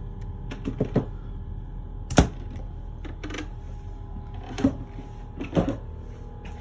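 A few sharp knocks and clicks at uneven spacing, the loudest about two seconds in, like footsteps and bumps on a boat's wooden cabin floor, over a steady background hum.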